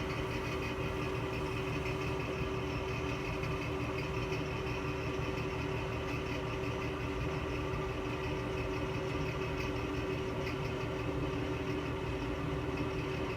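Bathroom exhaust fan running with a steady drone and a few held tones; its motor bearings are bad and running dry, and it needs oil.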